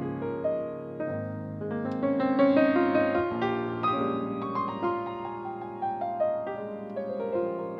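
Solo piano music: a gentle flow of sustained notes and chords, with new notes struck every fraction of a second.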